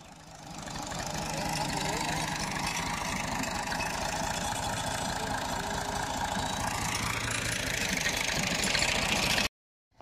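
Farm tractor's diesel engine running steadily as it pulls a tine cultivator through a field. The sound builds up over the first second or so and stops abruptly near the end.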